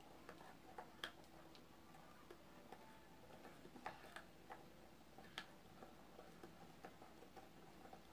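Near silence with a few faint, irregular clicks and taps: a spoon knocking against the bowl as gelatin-and-salt slime is stirred.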